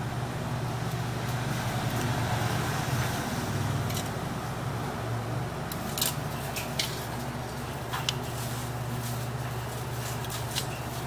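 Steady low hum of bench equipment, with a few sharp small clicks as the opened smartphone is handled and crocodile-clip power leads are attached to it.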